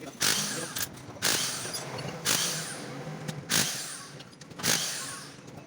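Five sharp strokes about a second apart, each a quick hit or scrape that fades within a fraction of a second, in a steady working rhythm.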